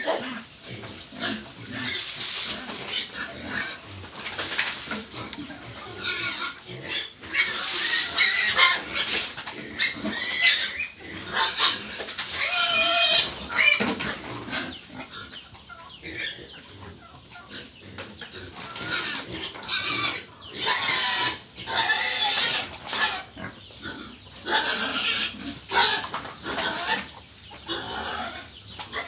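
Hungry pigs squealing in repeated loud bursts at feeding time, the loudest calls high and drawn out.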